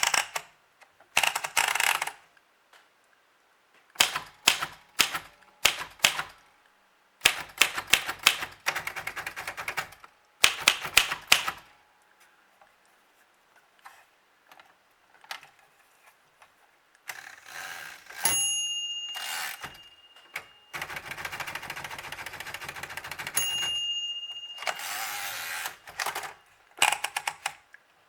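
Royal Aristocrat portable manual typewriter being worked: bursts of sharp key strikes, then longer stretches of carriage and platen noise with a ringing bell tone twice, about 18 and 23 seconds in.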